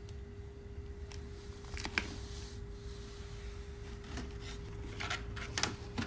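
Brown paper bag rustling and crinkling as it is picked up and handled inside a plastic-lined wastebasket, with a few short crackles about two seconds in and again near the end. A steady low hum runs underneath.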